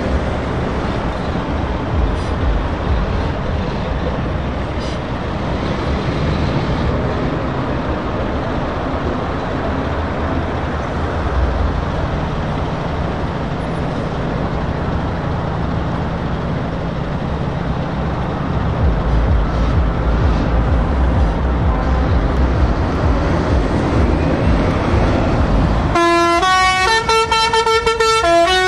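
Heavy truck diesel engines pulling away and passing at low speed. About 26 seconds in, a loud multi-note musical horn starts playing a tune of quickly changing notes as the MAN TGX tractor unit draws level.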